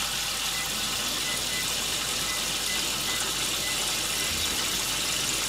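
Sardines and salmon frying in a pan, a steady even sizzle.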